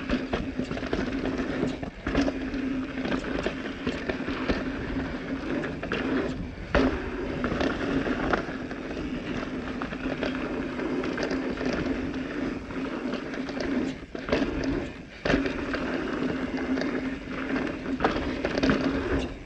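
Transition Smuggler full-suspension mountain bike riding down dirt singletrack: tyres rolling over the ground with a steady hum, and frequent knocks and rattles as the bike hits bumps and jumps.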